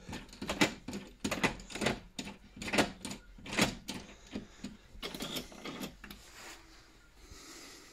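Lock mechanism of a metal entrance door worked by hand: a quick series of sharp clicks and clacks as the thumb-turn and lever handle are turned back and forth, throwing the bolts and latch. The action is light and easy. The clicks thin out and fade near the end.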